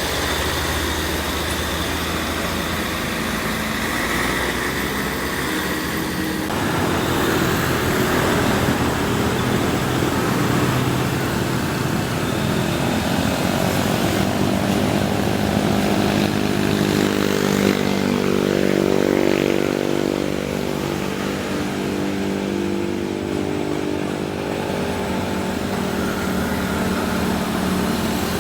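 Heavy truck diesel engines running: a steady low idle, a change in the engine sound about six seconds in, then a stronger engine note that rises in pitch past the middle and holds as an engine works harder.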